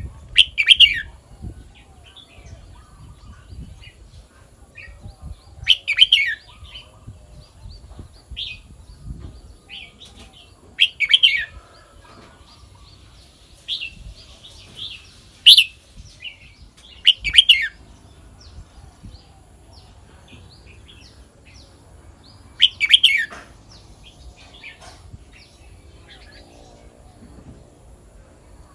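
Red-whiskered bulbul singing: six short, loud, clear phrases with softer chirps between them.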